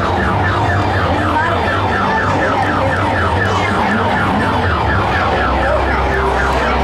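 Car alarm sounding: a rapid, repeating falling warble of about four sweeps a second, over a steady low rumble.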